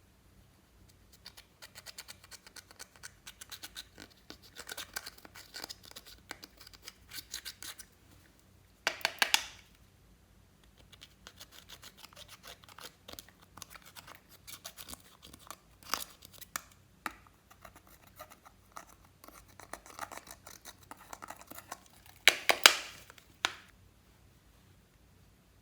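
Slime being worked by hand, giving off runs of small sticky clicks and crackles, with two louder bursts of crackling, about nine seconds in and near the end.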